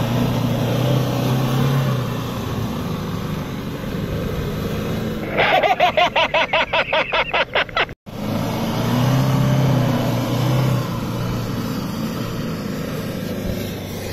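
Toyota Fortuner SUV's engine working under load as it ploughs through soft sand, its note rising and easing. Midway comes a rapid pulsing sound, about five beats a second, lasting a couple of seconds.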